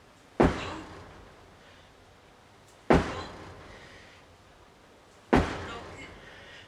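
Sledgehammer strikes during a training set: three heavy, sharp thuds about two and a half seconds apart, each ringing away over about a second in a large room.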